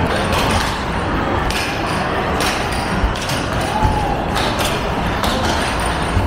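Basketballs thumping against the backboard and rim of a Nothin' But Net arcade basketball machine, several shots in quick succession, over a steady din of crowd chatter.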